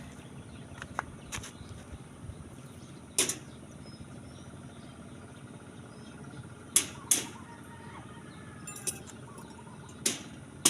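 Scattered sharp knocks and clinks a few seconds apart, two close together near the middle, from steel reinforcing bar being handled and bent into stirrups.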